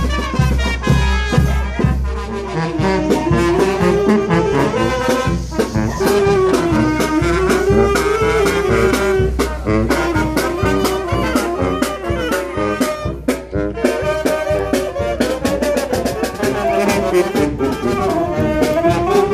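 Village brass band playing a tune on the march: trumpets and sousaphone carry the melody over a steady bass-drum and snare-drum beat.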